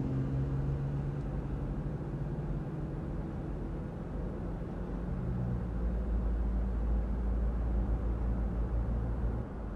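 Car driving: engine and road noise. An engine tone fades in the first second, leaving a steady low rumble that drops near the end.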